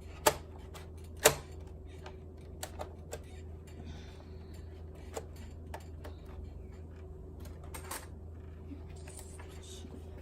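Plastic clicks and knocks of a laptop optical drive being pushed into its drive bay: two sharper knocks about a second apart near the start, then lighter, scattered clicks.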